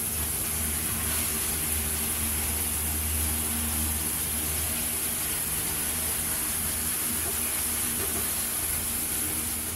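Shower running: water spraying from a showerhead and splashing in a steady hiss, with a low steady hum underneath.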